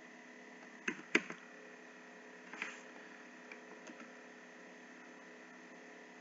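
A few faint, sharp computer clicks from operating the software, two close together about a second in and another a little later, over a faint steady electrical hum.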